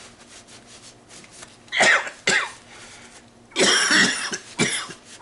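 A man coughing several times, in two short fits: two coughs about two seconds in, then two more a couple of seconds later.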